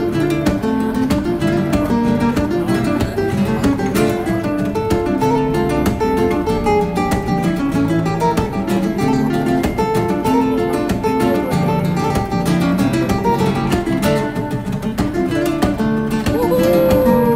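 Background music: fast acoustic guitar playing in a flamenco style, with busy picked and strummed notes.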